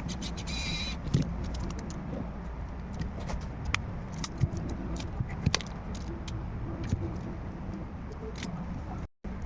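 Small tools and phone parts being handled during repair work: irregular light clicks and taps over a steady low hum.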